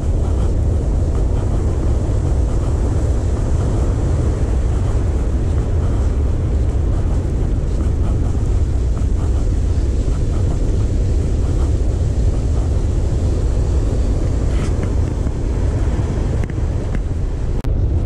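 Surf breaking on a sandy beach, a steady low roar with a faint hiss above it.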